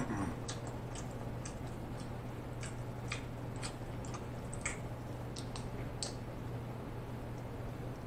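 Shell of a boiled shrimp being peeled apart by hand, giving irregular sharp clicks and crackles about one or two a second that thin out about six seconds in, over a steady low hum.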